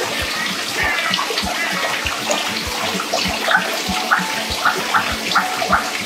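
Running water from the aviary's pond, a steady splashing and trickling with a regular plop about three times a second.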